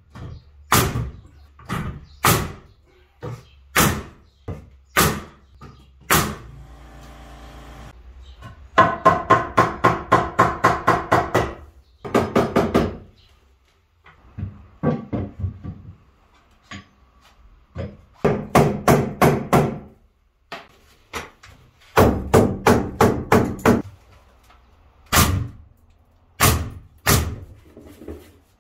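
Pneumatic nail gun driving nails into wooden ceiling framing: single sharp shots about a second apart, then rapid runs of shots at about four a second, broken by short pauses.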